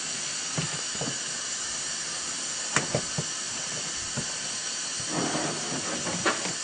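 A steady hiss under a few light clicks and knocks, from hands working on a cable and parts in a pickup truck's engine bay.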